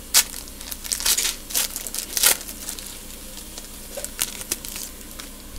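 Plastic foil wrapper of a trading-card pack being torn open and crinkled, a run of sharp crackles in the first couple of seconds and a few softer ones about four seconds in.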